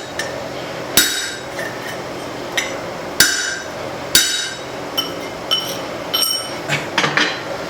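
A hammer striking a punch on hot leaf-spring steel over the anvil, trying to shear the slug out of a punched hole. About a dozen ringing metal blows: the heaviest come about one, three and four seconds in, then lighter, quicker strikes near the end.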